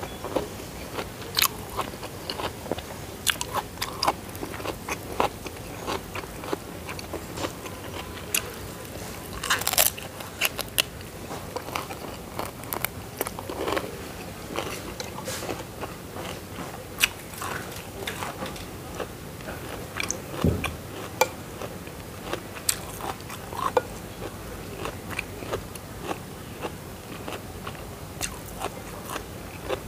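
Chewing and biting, with irregular crunches and wet mouth clicks, as a person eats boiled vegetables and rice; a louder cluster of crunches comes about ten seconds in.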